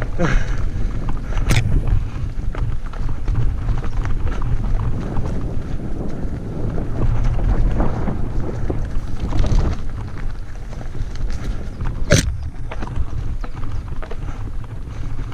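Mountain bike riding down a rough singletrail: tyres running over dirt and rocks, with the rattle and clicking of chain and frame and wind on the microphone. Two sharp knocks stand out, about a second and a half in and a few seconds before the end, the later one the loudest.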